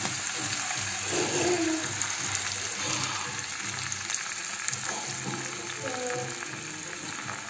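A soffritto of diced onion, carrot and celery sizzling steadily in hot oil in a frying pan as tomato passata is poured into it.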